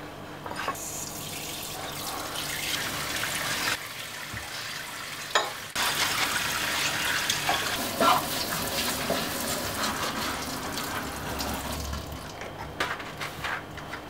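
Kitchen tap running into a stainless steel sink while dishes are rinsed by hand in rubber gloves, with a few sharp clinks of crockery. The flow eases off for a moment about four seconds in and dies away near the end.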